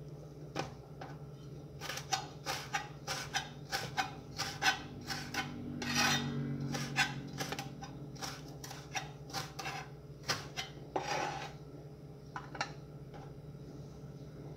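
Kitchen knife chopping a red vegetable on a plastic cutting board: a run of quick, uneven cuts a few a second, with a scrape about three-quarters of the way through as the pieces are swept off the board, over a steady low hum.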